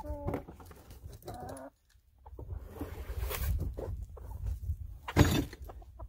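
Domestic hens clucking in short pitched calls over the first second and a half, over a low background rumble. A single sharp knock about five seconds in is the loudest sound.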